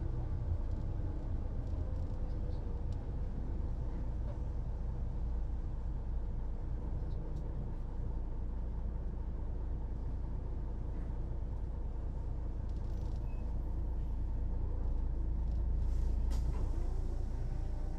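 Mercedes-Benz O405NÜ bus's diesel engine running, a steady drone that grows a little louder about fifteen seconds in, then eases.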